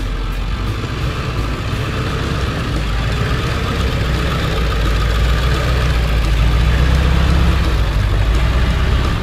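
Old pickup truck's engine pulling steadily in four-wheel low on a steep, rough climb, a low drone that grows louder partway through.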